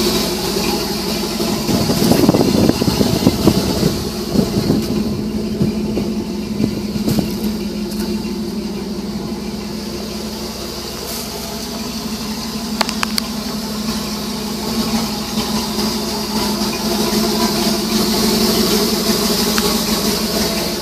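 Ford F-600's 370 cubic inch gasoline V8 idling steadily, with a few knocks and rattles about two to four seconds in.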